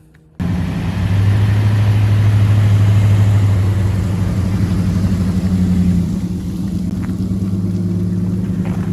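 An engine running steadily at a constant speed under a rushing noise, cutting in suddenly. Its deepest tone eases off about six seconds in.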